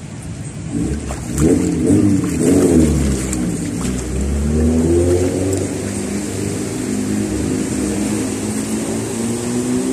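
Car engine revving up and down, then running on with a slowly wavering pitch, as a car makes its way through flood water on the street.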